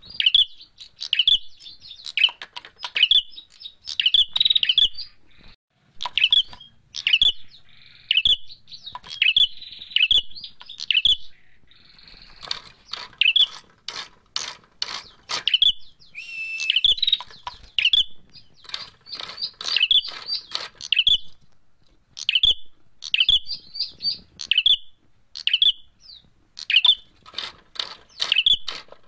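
Caged ashy tailorbird (prenjak merah) giving short, sharp chirps over and over, about one or two a second, its agitated fighting call. Sharp clicks and rattles from the bamboo cage run through it as the bird hops and flaps about.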